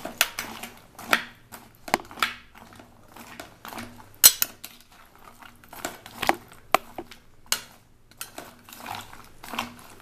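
Metal spoon stirring wet, salted in-shell peanuts inside a metal pressure cooker, clattering and scraping against the pot with irregular knocks. The sharpest knock comes about four seconds in.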